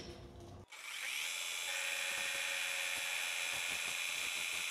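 Metal lathe spindle running with a steady high whine, winding up to speed about a second in, while a flat file is held lightly against the spinning adapter bushing for a final finishing touch.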